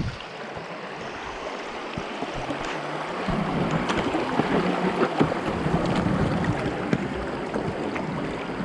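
Water rushing and splashing along a moving wooden boat's hull, growing louder about three seconds in, with wind on the microphone and a few scattered knocks.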